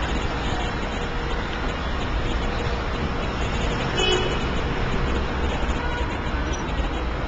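City street traffic: a steady rumble of cars, buses and scooters passing through the intersection, with one short horn toot about four seconds in.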